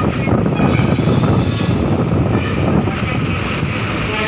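Vehicle running, heard from on board while it moves along a street: a loud, rough, uneven rumble of engine and road noise.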